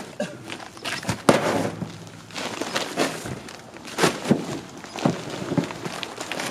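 Heavy bags of frozen coal being thrown down and stacked: a run of irregular thuds with rustling between them. The sharpest thuds come a little over a second in and again about four seconds in.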